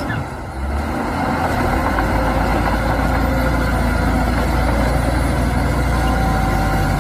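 Heavy diesel engine of a bulldozer running steadily, with a deep rumble.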